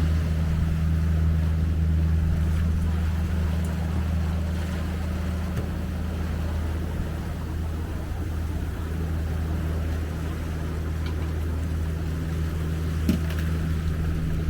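Yacht's engine running steadily under way: a low, even drone.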